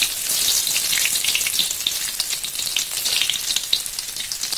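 Sliced shallots sizzling in hot vegetable oil in a wok, just dropped in, with a steady crackle of many small pops.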